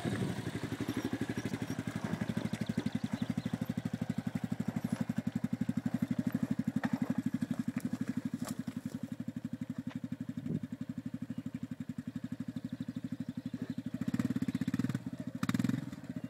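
Yamaha Raptor 250 quad's single-cylinder four-stroke engine running with a steady fast pulse as the quad climbs a rocky dirt slope, getting louder twice near the end.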